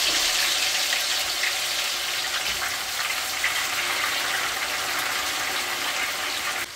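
Raw peeled peanuts sizzling in hot oil in a wok as they are scooped in: a steady hiss.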